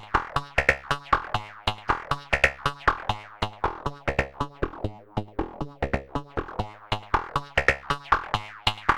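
A Eurorack synthesizer sequence played through the SetonixSynth Marsupial analog filter: a rapid run of short plucked notes, several a second. An ADSR envelope snaps the filter open and shut on each note, so the brightness shifts from note to note.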